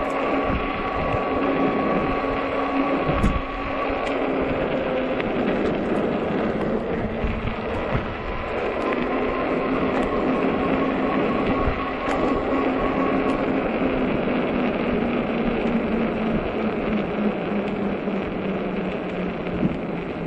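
Ecotric 48 V fat-tire e-bike riding in strong wind: wind rushes over the microphone with a steady electric-motor whine. The whine sinks slightly in pitch over the second half, and there are a few light knocks, the clearest about three seconds in.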